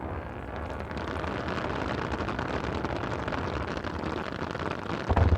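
Fireworks crackling: a dense, steady crackle like rain, with a deep boom about five seconds in.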